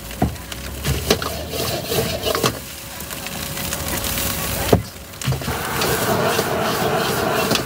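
A few sharp knocks and clacks scattered over the first five seconds, then a steady hissing noise that sets in about five and a half seconds in.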